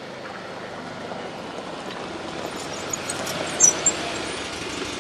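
Can-Am HD8 side-by-side utility vehicle driving over rough ground: a steady running noise that grows louder, with rattling and high squeaks from the body and suspension about halfway through.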